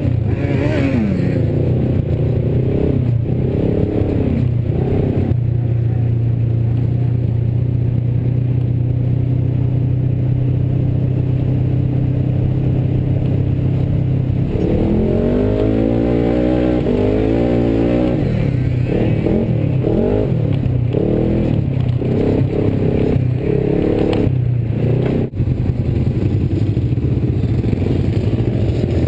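Turbocharged Polaris RZR side-by-side engine under way. It holds steady revs for several seconds, then from about halfway on the revs rise and fall repeatedly as the throttle is worked.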